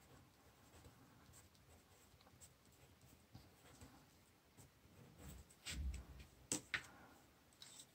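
Faint scratching of a colored pencil writing on paper, then a soft knock and a few sharp clicks of handling a little over five seconds in.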